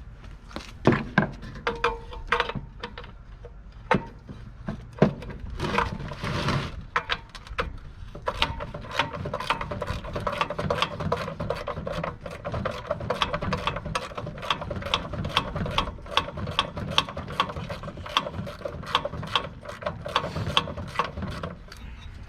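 Socket ratchet wrench clicking as a nut or bolt on the old heater housing is turned, a steady, even run of about three clicks a second starting about eight seconds in, after a few scattered knocks and clinks of tool handling.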